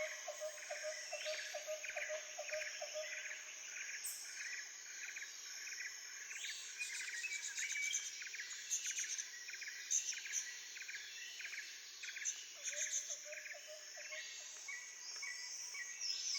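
Outdoor ambience of several birds chirping and calling over a steady high insect hum. A low call repeats about four times a second at the start, and again briefly near the end.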